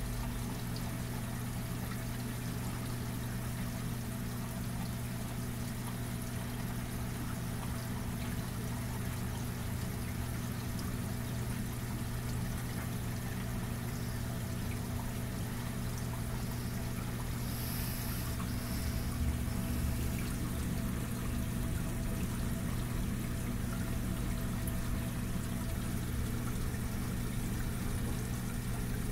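Aquarium water circulating, trickling and splashing steadily, over a steady low hum.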